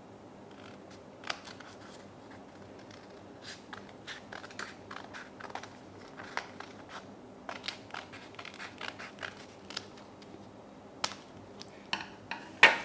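Small scissors cutting through a folded sheet of paper along a curved line, a long run of short crisp snips. Near the end come a few sharper clicks, the loudest just before it ends.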